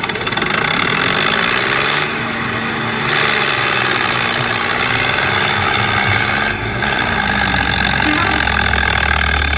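Tractor engine running hard, its pitch rising and falling as it revs. A deeper steady drone comes in about two-thirds of the way through.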